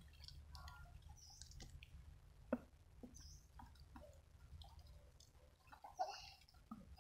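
Near silence with a faint low rumble and scattered small clicks and taps, with a sharper click about two and a half seconds in and another near six seconds.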